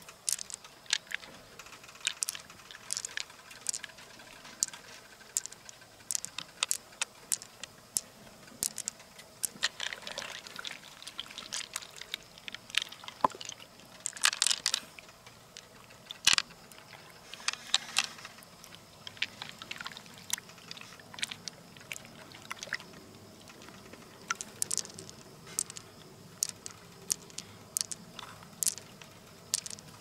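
Pearls clicking against one another and against the mussel shell as fingers pick them out of the wet flesh of an opened freshwater mussel, with soft wet squishing. The clicks come irregularly, several a second at times.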